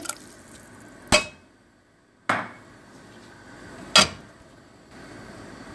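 Kitchenware knocking sharply against the rim of a steel cooking pot three times over about three seconds, as ingredients are tipped into boiling soup.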